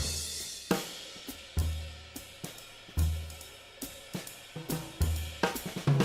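Music led by a drum kit: cymbal crashes, hi-hat and snare hits over deep low bass notes that come every second or so.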